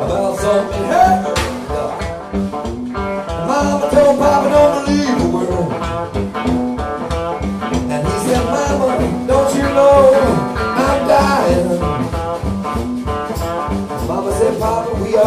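A live band playing a blues-rock song: keyboard, electric bass and a drum kit keeping a steady beat, with a man's voice singing over them.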